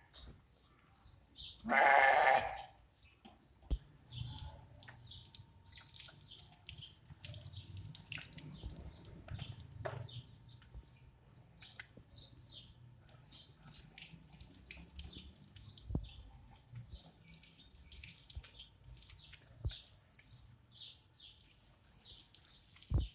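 Water from a garden hose splashing and dripping on a wet sheep and a concrete floor, with one loud bleat from the sheep about two seconds in.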